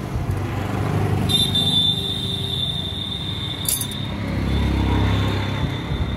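Motor vehicle traffic running close by, a low engine rumble that swells about four and a half seconds in. A steady high-pitched tone runs for a couple of seconds in the middle, with a couple of faint clicks.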